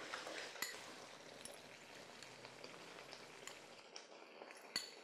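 A pan of thick pea gojju simmering on the stove: faint, steady bubbling with a few small clicks, the sharpest near the end.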